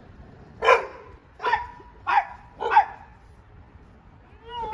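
A dog barking four times, short sharp barks about two-thirds of a second apart, each dropping in pitch.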